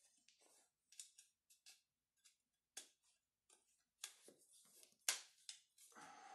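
Light scattered clicks and scrapes of plastic grommet strips being pressed into the holes of a Babolat Pure Strike tennis racket frame, with a sharper click about five seconds in and a short scratchy rustle near the end.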